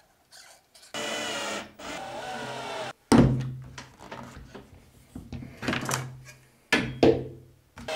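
Cordless drill running in two steady bursts of about a second each, then a loud knock and a few lighter knocks of tools and wood on the workbench.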